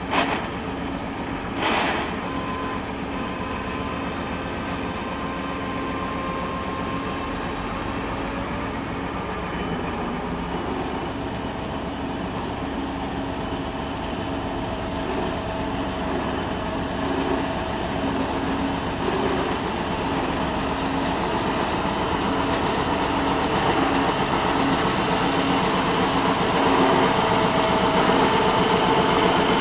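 A vehicle engine running steadily, with a constant hum of several steady tones that grows gradually louder. There is a brief louder noise about two seconds in.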